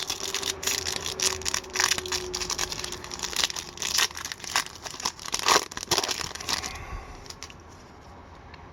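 A 2008-09 Upper Deck Series 1 hockey card pack wrapper being torn open and crinkled by hand: a dense run of crackles and snaps that dies away about seven seconds in.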